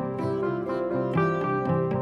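Instrumental background music: a melody of short plucked-string notes over sustained low notes.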